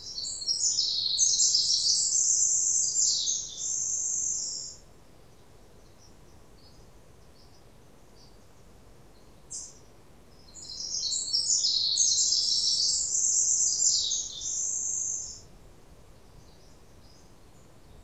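A songbird singing two long, high, rapid songs of about four and a half seconds each, about ten seconds apart and much alike, with a brief single high note shortly before the second.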